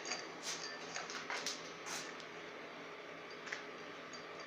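Faint, light metal clicks and scrapes from a lathe variator being worked by hand as its speed handle is turned to move the pulley cheeks. There are several quick ones in the first two seconds and a single click later.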